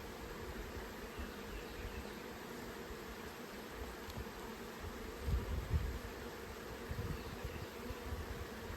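Honeybees buzzing in a steady drone around an opened hive, with a few low rumbles on the microphone about five seconds in.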